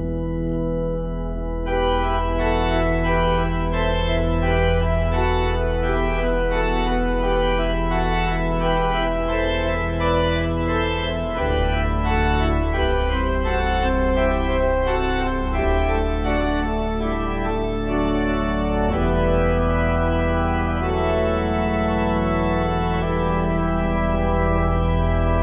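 Instrumental music: sustained organ-like keyboard chords over a steady low bass. The sound grows fuller about two seconds in, and the harmony shifts a couple of times, without any singing.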